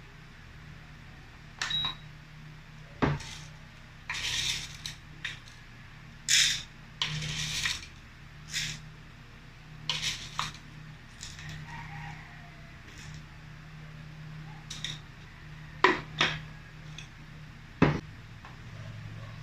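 Scattered clinks, taps and knocks of dishes and utensils being handled, a dozen or so, some sharp and some longer clattering, over a steady low hum.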